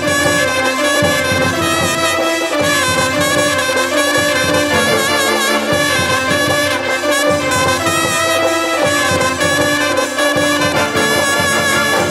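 Loud music, with brass instruments playing the melody.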